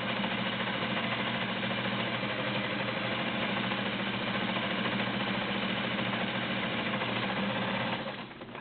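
Vintage Kenmore Model 84 sewing machine's 1.2-amp motor running steadily as it sews a cam-driven scallop stitch. It stops about 8 seconds in.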